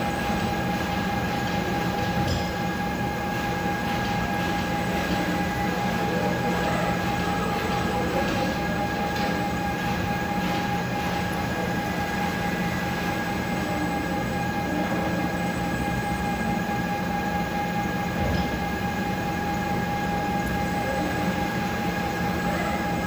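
Concrete 3D printer machinery running steadily while printing, a constant mechanical hum with a steady whine.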